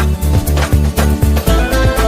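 A smartphone ringtone playing: electronic music with a steady bass beat, a melody line coming in near the end.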